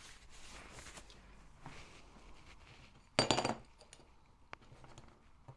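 Small machined metal kit parts handled on a workbench: light rubbing and scraping, then a sharp metallic clink with brief ringing about three seconds in as the metal pieces knock together or are set down, followed by a couple of faint ticks.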